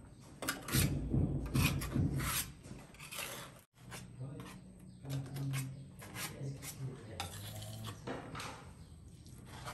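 Small steel trowel scraping and pressing neat cement into the gap along the edge of a granite wall tile, a series of short rasping strokes, metal on cement and tile.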